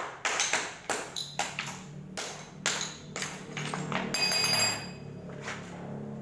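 Sharp metal knocks, about two to three a second, on a jackhammer's chisel bit that has got stuck, then a single ringing metallic ping about four seconds in, over a low steady hum.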